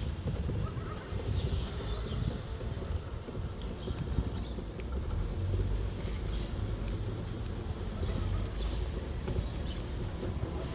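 Outdoor park ambience: a steady low rumble, with brief high chirps now and then.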